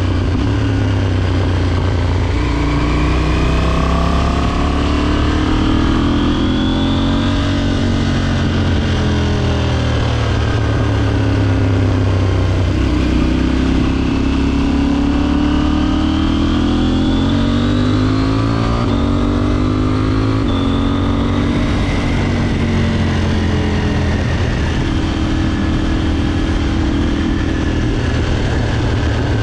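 KTM 790 motorcycle's parallel-twin engine running under way. Its pitch climbs in long glides and drops back several times as the throttle is opened and eased, with steadier running in between.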